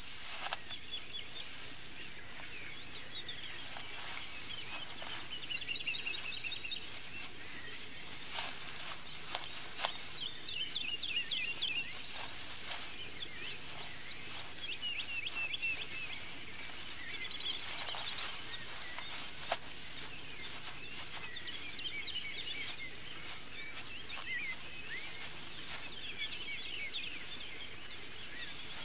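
Small birds chirping and twittering in short repeated phrases over a steady outdoor hiss, with scattered soft clicks and rustles.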